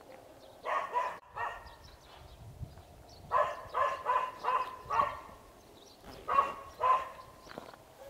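A dog barking in three bouts: three barks about a second in, five in quick succession around the middle, and two near the end.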